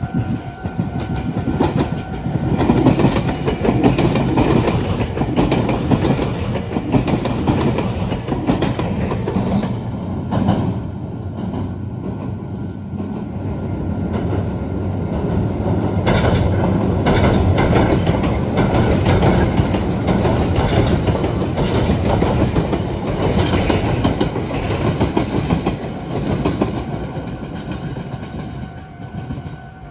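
Meitetsu electric train passing, its wheels clattering over the rail joints and points of the junction. It runs loud for most of half a minute, easing off briefly in the middle and swelling again before fading near the end.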